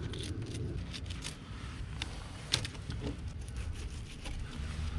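A knife filleting a fish on wooden planks: scattered scrapes and clicks as the blade works through the scales and along the bones, the sharpest about two and a half seconds in, over a steady low rumble.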